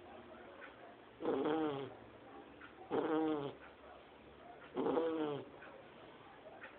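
Two-month-old Shar Pei puppy snoring like a grown person: three snores in a steady rhythm, one about every two seconds, each lasting just over half a second.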